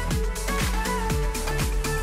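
Background music: an upbeat electronic dance track with a steady kick drum about twice a second under short melodic notes.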